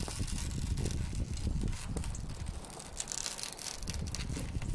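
Irregular crunching and crackling as a strip of old polyurethane window-bonding adhesive, full of broken safety-glass fragments, is pulled away from the window frame, the glass bits grinding and breaking off as the bead tears free.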